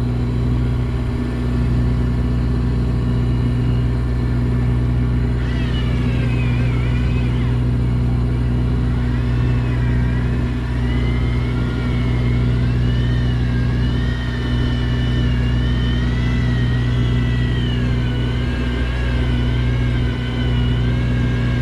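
A boat engine hums steadily underneath. From about five seconds in, the motor of a Shimano Plemio 3000 electric reel whines as it winds in line, its pitch wavering up and down as the load on the bent rod changes.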